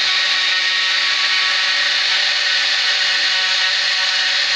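Homemade CNC router milling a pocket in wood: its 775 DC spindle motor runs with a steady high-pitched whine while the end mill cuts, with no let-up or change in pitch.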